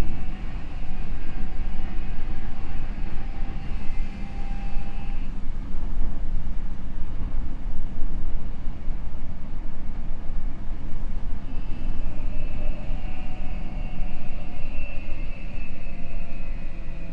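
Odakyu 5000 series train heard from inside the car: steady wheel and rail rolling noise under the whine of its Mitsubishi SiC inverter traction motors. The inverter tones sound for the first five seconds, drop out for several seconds, then return about two-thirds of the way in and fall slowly toward the end.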